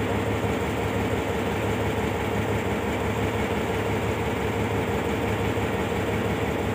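Diesel locomotive engine running with a steady, even hum.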